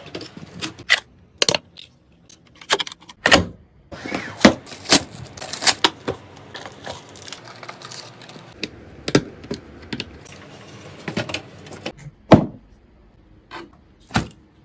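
Irregular clicks, clinks and knocks of hard plastic and metal parts being handled and fitted during a PC build, with a busier rattling stretch a few seconds in and two loud knocks near the end.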